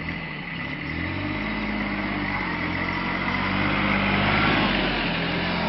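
Kubota B1620 compact tractor's small three-cylinder diesel engine running as the tractor drives up and turns past, getting louder and loudest about four and a half seconds in.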